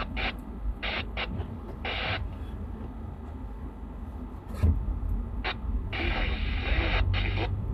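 Low, steady road and engine rumble inside a moving vehicle's cabin, with a recorded weather broadcast coming through a small speaker in short, broken snatches.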